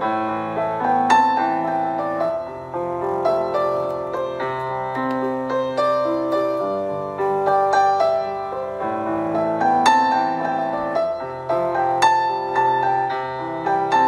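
Soft solo piano background music, a gentle melody of separate notes over sustained chords.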